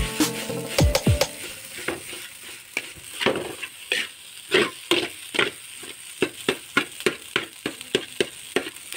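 Nasi goreng (fried rice) being stirred in a hot frying pan: a steady sizzle with repeated scraping strokes of the stirring utensil, about three a second, getting going about two seconds in.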